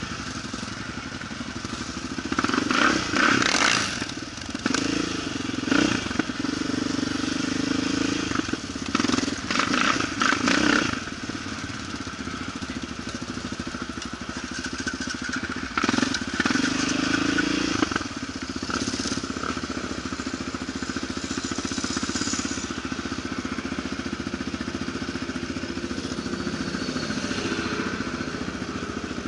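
Quad (ATV) engine running while driving off-road, its revs surging several times in the first eighteen seconds before running more evenly.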